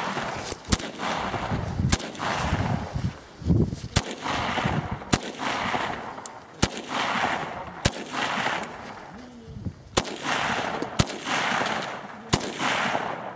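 AK-pattern carbine firing single shots, about ten of them spaced roughly a second apart and unevenly.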